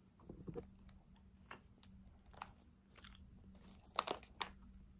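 Faint, scattered crunchy clicks, a dozen or so short sharp sounds with a cluster about four seconds in, from cornstarch being chewed and its plastic canister being handled and opened.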